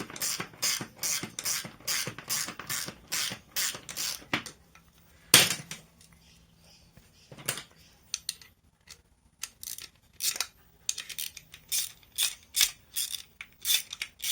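Quick run of sharp mechanical clicks, about three a second, as a homemade HDPE phone clamp and its bolt hardware are worked apart. A few separate loud clicks follow, then another run of clicks near the end.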